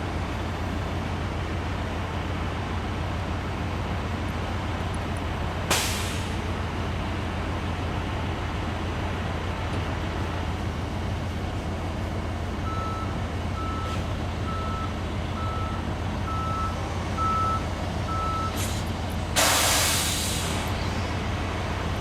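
Heavy maintenance-of-way truck idling with a steady low rumble, its backup alarm beeping seven times, then a loud hiss of air, like air brakes releasing, near the end. A single short clank or pop comes about six seconds in.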